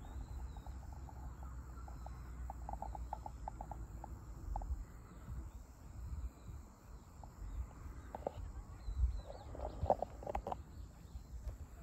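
Outdoor ambience: low wind noise on the microphone with faint animal chirps, a quick run of short chirps about three seconds in and a busier patch of chirps and calls near the end.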